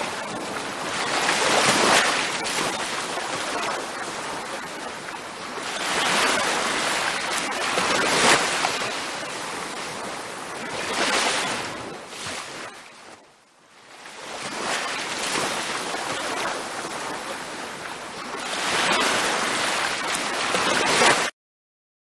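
Ocean surf washing onto a beach, a steady hiss of water that swells and ebbs with each wave every few seconds. It sinks to a brief near-silent lull about halfway through and cuts off abruptly just before the end.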